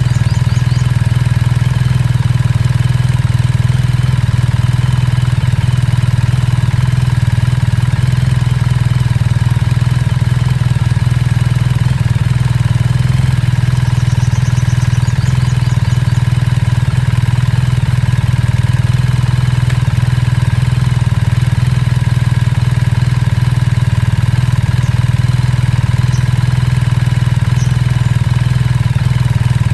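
BMW R1300 GS's boxer twin idling steadily through a Termignoni Omologato slip-on exhaust, an even low note with no revs.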